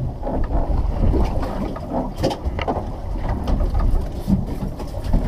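Wind buffeting the microphone and water moving against the hull of a small offshore fishing boat, with a few sharp clicks and knocks on board.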